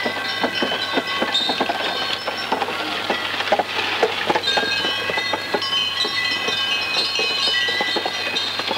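Covered bullock cart rolling along a rough track: a dense, irregular clatter of wooden wheels and frame knocking, with bells ringing and jingling over it.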